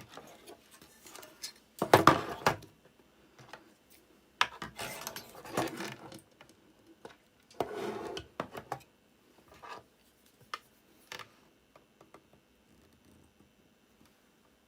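Workbench handling noises: tools and a power-supply circuit board being moved, scraped and set down, in three louder bursts of clattering about two, five and eight seconds in, with scattered light clicks between and fewer near the end.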